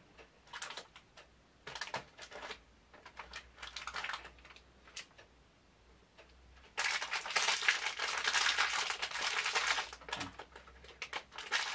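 Clear plastic packaging being handled and opened: scattered light clicks and rustles, then about three seconds of steady plastic crinkling from about seven seconds in, followed by more small clicks.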